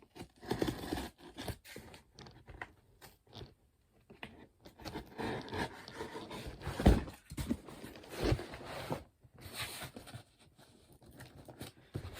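A cardboard shipping box being cut and torn open with a small multi-tool knife: irregular scraping, crunching and rustling of cardboard, with a few thumps, the loudest about seven seconds in.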